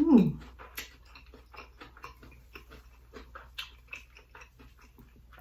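A person chewing a mouthful of food close to the microphone, with many small wet mouth clicks and smacks. It opens with a short hum that falls in pitch.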